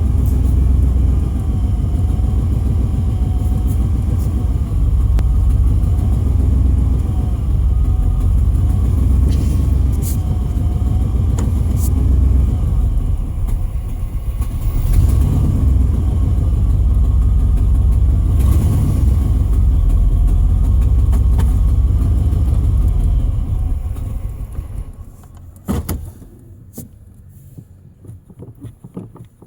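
Truck engine running roughly on a failing fuel pump, kept alive by pumping the gas pedal, its speed wavering up and down. About 24 seconds in it dies away, leaving a quiet stretch with a few sharp knocks.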